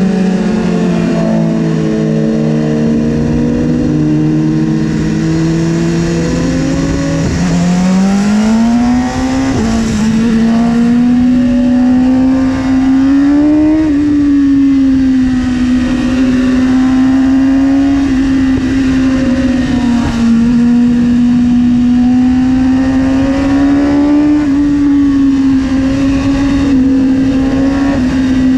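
BMW S1000RR inline-four sportbike engine heard from on board, pulled hard at high revs. It holds steady at first, climbs sharply about seven seconds in, then stays high with small rises and dips as the throttle is worked, over a constant rush of wind.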